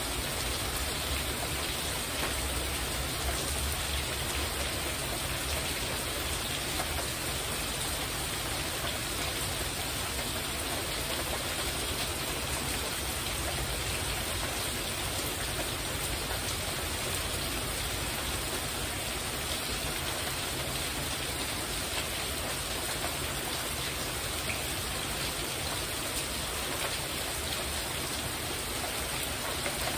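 Heavy rain falling steadily on a porch roof overhead, an even, unbroken rush of drops with no change in strength.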